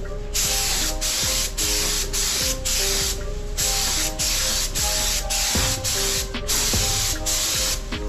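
Gravity-feed air spray gun hissing in a quick series of short bursts, roughly two a second with one longer pause a few seconds in, as the trigger is pulled and released to lay a coat of primer.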